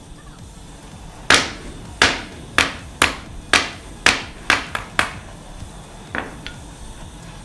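Hammer striking heated aluminium pieces stacked on a metal cylinder used as an anvil: about nine sharp blows, coming faster toward the end, then two lighter taps with a brief ring. The blows are an attempt to hammer-weld the hot aluminium pieces together.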